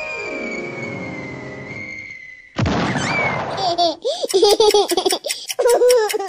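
Cartoon sound effects: a long, slowly falling whistle tone with a lower descending sweep, then about two and a half seconds in a short noisy burst, then a baby giggling in repeated short, high laughs.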